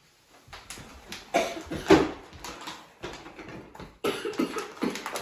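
A heavy gift-wrapped present being handled and set down, its wrapping paper crinkling in many short crackles. There are two brief cough-like vocal sounds about a second and a half to two seconds in.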